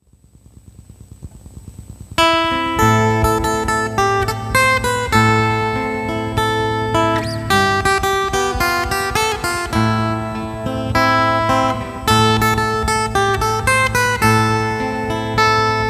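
Acoustic guitar instrumental. A soft, quickly repeating figure fades in over the first two seconds, then the full plucked melody comes in with notes that start sharply and ring out.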